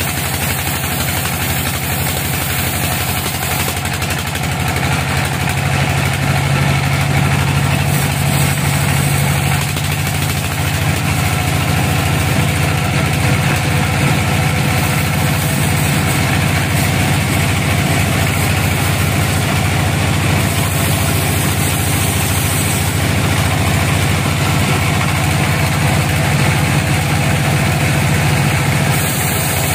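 Band sawmill running steadily as its blade rips a slab along a crooked teak log: a loud, even machine drone with a strong low hum.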